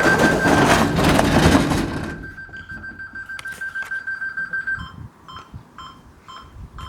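Optima Compact intruder alarm sounding its exit tone after being quick-set: a steady high-pitched tone that about five seconds in changes to short pulsed beeps, about three a second, counting down the exit time. A loud rushing noise covers the first two seconds.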